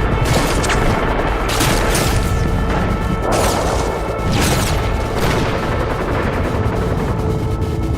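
Background music with steady held tones, cut by about five loud noisy bursts roughly a second apart, like bursts of gunfire.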